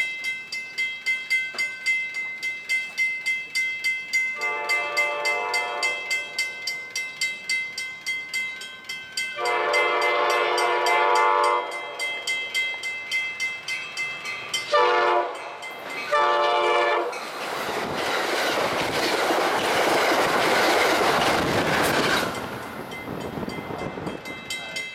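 Locomotive air horn sounding the grade-crossing signal, two long blasts, a short one and a long one, over the steady rapid clanging of a crossing warning bell. After the last blast the train passes, with a loud rush of wheels on rail for about five seconds, before the bell is heard again.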